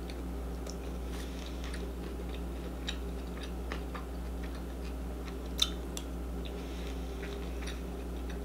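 Close-microphone chewing of rice and sausage: soft, scattered mouth clicks and smacks over a steady low electrical hum, with one sharper click a little past halfway.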